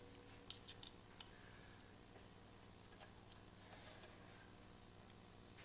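Near silence, with a few faint clicks in the first second or so as small hand tools and screws are handled.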